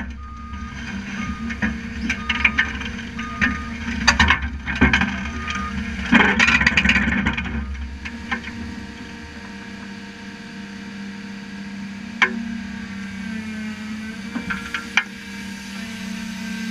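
Caterpillar 330C excavator's diesel engine running as its steel tracks clank and grind onto the lowboy trailer's deck, with a beeping travel alarm about once a second. About eight seconds in the tracks stop and the deep rumble drops away, leaving the engine running steadily, with two sharp clanks later on.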